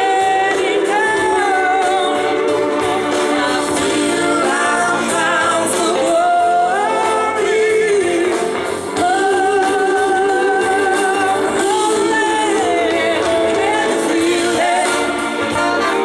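Live blues-rock band playing, with a woman singing lead in long held notes over electric guitars and drums.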